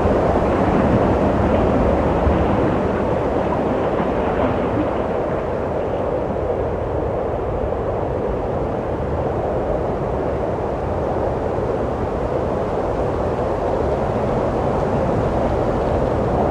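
Steady wind blowing with a deep, low rumble and no distinct gusts. It is a little stronger at first, eases off in the middle and builds again near the end.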